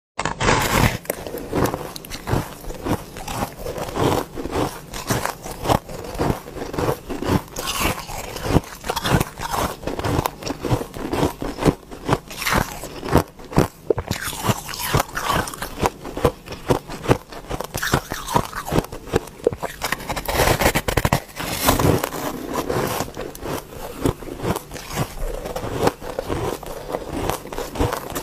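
Close-up biting and chewing of a crumbly rainbow-dyed ice slab: a dense, continuous run of sharp crunches, several a second, as chunks break off and are chewed.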